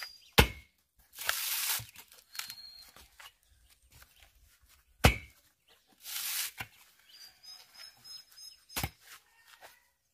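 A dehusked coconut struck against the steel point of a homemade coconut opener, three sharp knocks a few seconds apart as the shell is cracked open. A brief rushing hiss follows each of the first two knocks, with faint bird chirps behind.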